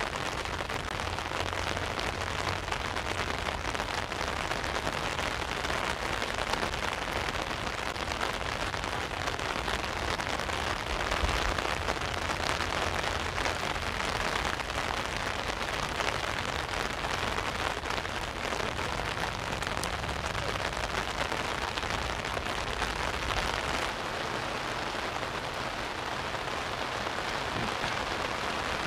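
Steady heavy rain pattering on an umbrella overhead and falling on the sea, a dense even hiss of drops. A low rumble underneath drops away near the end.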